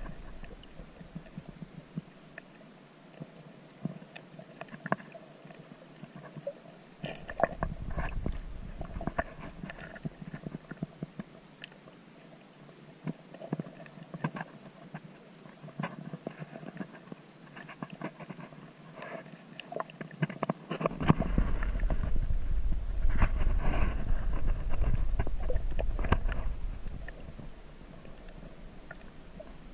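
Underwater sound picked up by a submerged camera: scattered clicks and crackles throughout, with a low rumbling swell of water movement about seven seconds in and a louder, longer one from about twenty-one to twenty-seven seconds.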